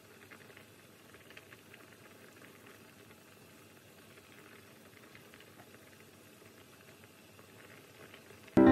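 Pot of beef seaweed soup (miyeokguk) bubbling at the boil, faintly, with light scrapes and taps of a wooden spoon stirring it. Loud music comes in suddenly near the end.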